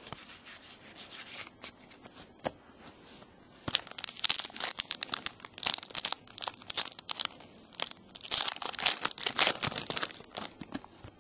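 A trading card pack's wrapper being torn open and crinkled: rapid crackling that comes in dense spells from about four seconds in, after lighter rustling and handling.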